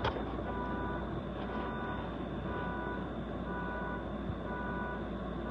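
A vehicle's reversing alarm beeping steadily, one half-second beep about every second, over a low steady hum.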